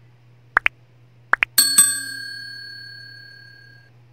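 Subscribe-button animation sound effect: two quick double clicks like a mouse pressing the buttons, then a notification bell ding that rings on and fades over about two seconds.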